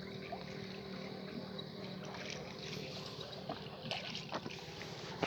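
A small boat moving on a fish pond: a steady low hum with a few light knocks and water sounds about three to four seconds in.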